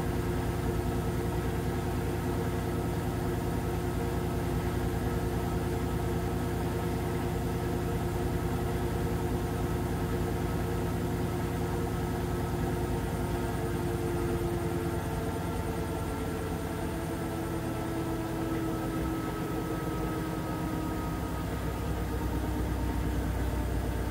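Whirlpool FreshCare+ washing machine running: a steady motor hum with several whining tones that sink slightly in pitch past the middle.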